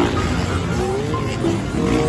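A pack of motocross dirt bikes revving and pulling away together, several engines rising and falling in pitch at once, with background music underneath.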